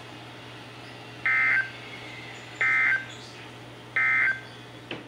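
NOAA Weather Radio's EAS/SAME end-of-message code: three short, identical bursts of warbling two-tone digital data, about 1.4 seconds apart, over the receiver's steady hum and hiss. A click near the end as the broadcast cuts off.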